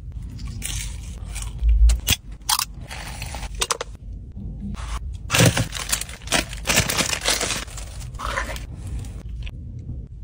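Paper food wrapper and cardboard takeaway box being handled and unwrapped, rustling and crinkling in several short bursts, with a few sharp crackles.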